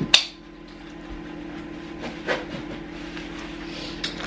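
A sharp click just after the start and a softer one about two seconds later, over a steady low hum.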